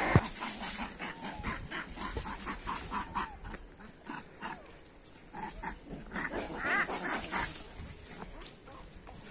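A troop of rhesus macaques calling: a string of short squeaks and chirps, busiest around six to seven seconds in.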